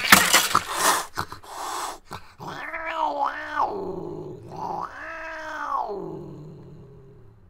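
A cat hissing in a few harsh bursts, then yowling twice: first a wavering call that rises and falls twice, then one longer rising-and-falling wail that fades away.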